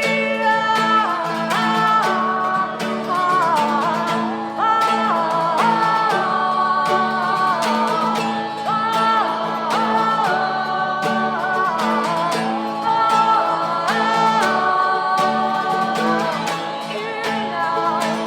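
Live acoustic music: strummed acoustic guitar with female voices singing a held, gliding melody with no clear words.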